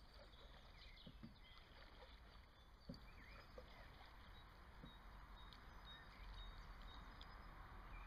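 Near silence: faint open-air ambience with a few faint short chirps.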